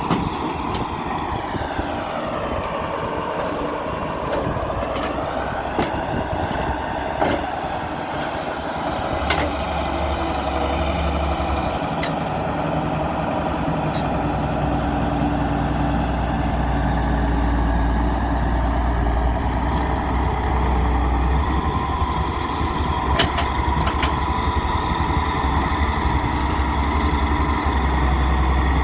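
Daewoo 170W-III wheeled excavator's diesel engine running, with sharp clicks now and then. A tone dips and rises again in the first few seconds, and the engine's low drone grows stronger about a third of the way in.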